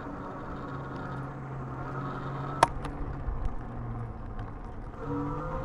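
Electric fat bike's 500-watt motor whining steadily under throttle over tyre and wind noise, with a sharp click about two and a half seconds in; near the end the whine begins to rise in pitch.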